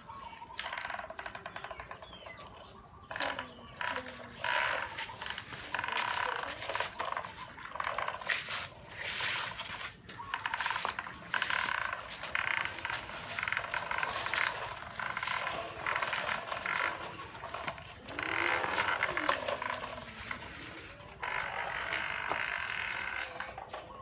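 Plastic toy trucks pushed and dragged over sandy dirt, giving intermittent rough scraping and gritty rolling noise that comes and goes in bursts. A few short vocal sounds are mixed in.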